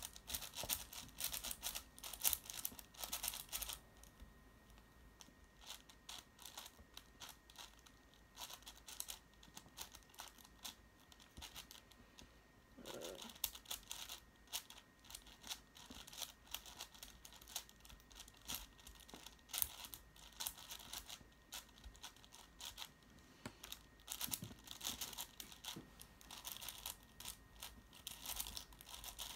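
Plastic speedcube layers being turned in rapid flurries of clicks and clacks while a parity-fixing algorithm is worked through. There is a brief pause about 4 seconds in, and a short low vocal sound about 13 seconds in.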